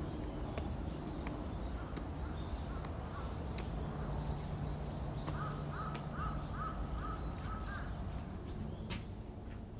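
A crow cawing, a quick run of about six caws about halfway through, over a steady low hum.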